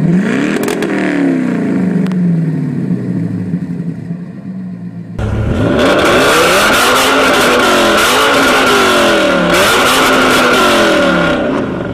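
A C4 Chevrolet Corvette V8 on straight pipes gives a single rev near the start and settles back to a burbling idle. Then a BMW M6's V10 on straight pipes blips its throttle in several quick revs, louder, with a steady high whine under them.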